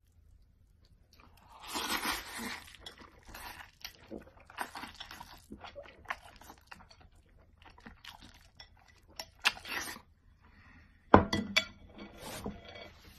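Noodles being slurped and chewed noisily, in irregular wet bursts, with a sudden louder burst near the end.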